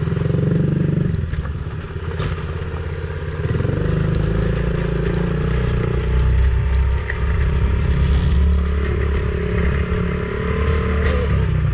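Dirt bike engine running, its note shifting a few times.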